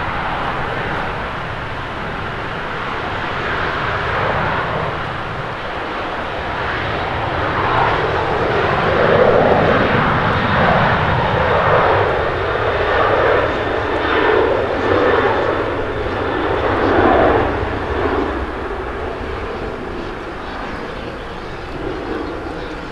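Boeing 737-800's CFM56-7B turbofan engines at takeoff thrust during the takeoff roll: a continuous jet rush with an uneven, pulsing texture. It swells to its loudest in the middle and eases toward the end as the plane lifts off and moves away.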